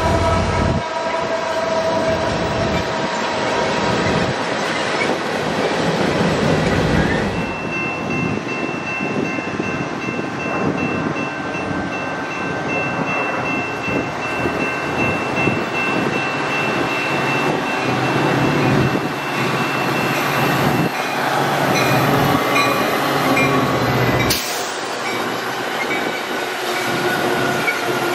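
Freight cars rolling past with wheel-on-rail clatter for the first several seconds. Then, from about seven seconds in, a commuter train of stainless-steel bilevel cars runs into the station and past with steady wheel and rail noise. There is one sharp click near the end.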